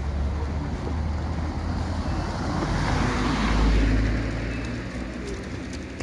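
A car passing on the street, its engine and tyre noise swelling to a peak a little past halfway and then fading away.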